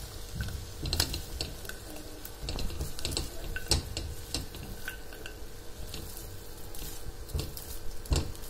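Spatula stirring freshly popped popcorn in a nonstick pan: irregular scrapes, rustles and light knocks against the pan.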